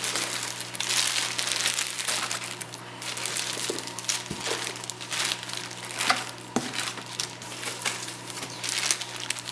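Packaging crinkling and rustling as a hand rummages inside a cardboard shipping box among small plastic bags and packing material, a dense run of irregular crackles with a few sharper clicks.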